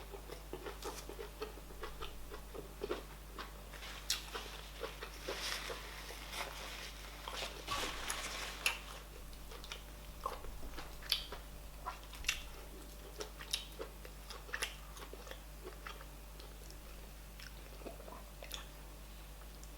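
A person chewing and biting on fufu and oha soup with meats, with many irregular wet smacks and clicks.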